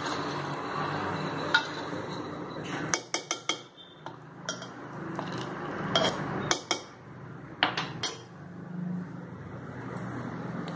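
Steel ladle clinking and scraping against a stainless-steel cooker vessel while stirring thick cooked dal: a series of sharp metallic clinks in clusters through the middle, over a low steady hum.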